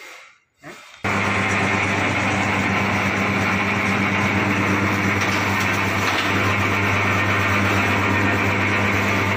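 A 4 HP electric wire stripping machine is switched on about a second in and runs steadily, with a constant motor hum.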